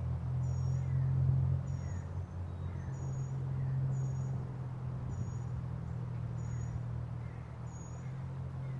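Outdoor ambience: a steady low rumble, with a short high-pitched chirp repeating about once a second.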